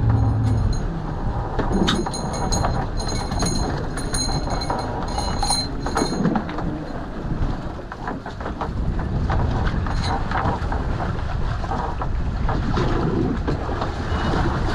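A small motor boat rumbles at sea, with choppy water against the hull and wind on the microphone. For the first six seconds or so, a run of short, high-pitched metallic clinks and squeaks comes and goes.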